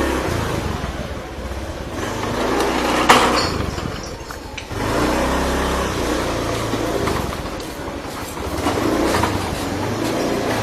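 Motor vehicle engine running, its speed rising and falling, with a sharp click about three seconds in.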